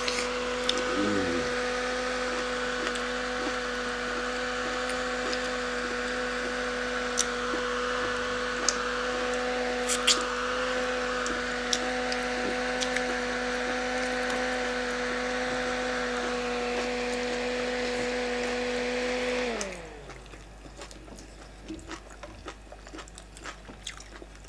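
Small handheld battery-powered fan running with a steady motor hum and whir, then switched off about five seconds before the end, its hum sliding down in pitch as the blades spin down. Small clicks from eating sound over it.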